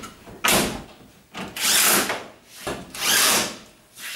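A brief scrape about half a second in as the dryer's top panel is set in place, then a cordless drill-driver runs twice, about half a second each time, driving in the lid's screws.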